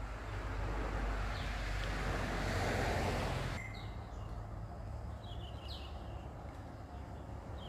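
Rushing noise of road traffic swelling as a vehicle passes, cut off abruptly about three and a half seconds in. A quieter outdoor background with a few short bird chirps follows.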